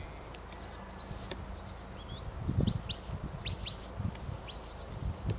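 Shepherd's whistle commands to a working sheepdog: a sharply rising high note held for about a second, four short upward chirps, then another rising, long-held whistle near the end.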